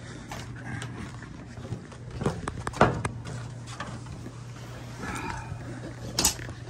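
Scattered knocks, clicks and rustles of hands working at a canvas boat cover and the boat lift's canopy frame, with the loudest knock near the middle and another sharp one near the end.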